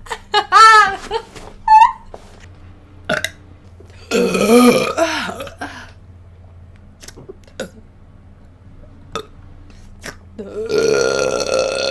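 A person burping: a short loud burp right at the start, a long loud one about four seconds in, and another long burp near the end, with small mouth clicks in between.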